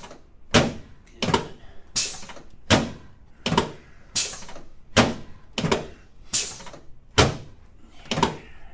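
Chiropractic adjustment of the sacroiliac joints: a steady run of sharp thuds, about eleven of them, one every three-quarters of a second.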